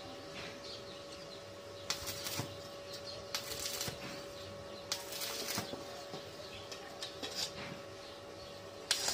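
Electric arc welding on a steel fence railing: about five short bursts of arc crackle, each under a second, spaced a second or two apart as the joint is tack-welded.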